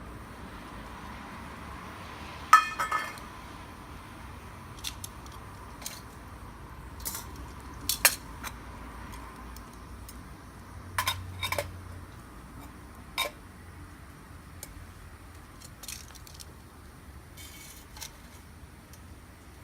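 Metal camping gear clinking: a dozen or so sharp clinks scattered irregularly, the loudest about two and a half seconds in with a brief ring, over a steady low hiss.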